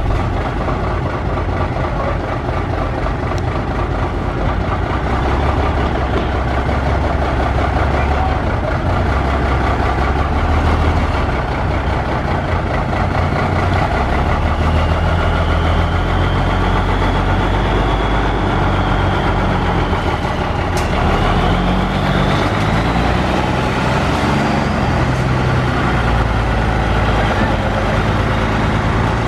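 ERF EC14 lorry's diesel engine running at low revs as it slowly hauls a heavy loaded trailer. A thin high whine rises and falls in the middle.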